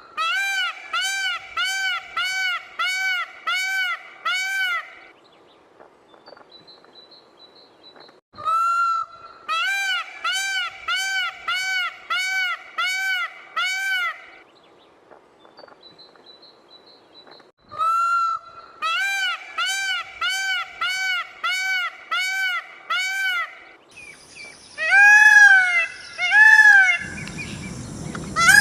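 Peafowl calling in three bouts of repeated nasal honks, each bout opening with a longer call and then about eight short arched honks, roughly two a second. Near the end come a few louder, falling calls. Faint brief high chirps sound in the gaps.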